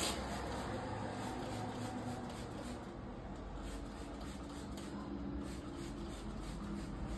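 Cleaning cloth rubbing and wiping over refrigerator surfaces sprayed with cleaner.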